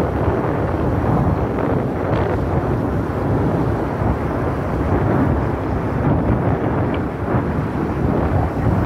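Wind buffeting the microphone of a moving vehicle, a steady rushing rumble mixed with the low noise of the vehicle on the road.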